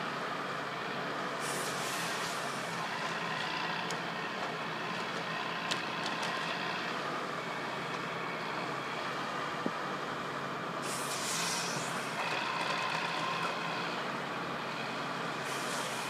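Wheeled forestry harvester working, its engine running steadily with a faint whine. Short bursts of hiss come three times: about a second and a half in, longest around eleven seconds in, and again near the end.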